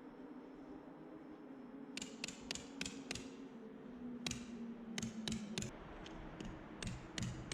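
Background music: sharp ticking clicks in short runs about three a second, starting about two seconds in, over a low sustained tone.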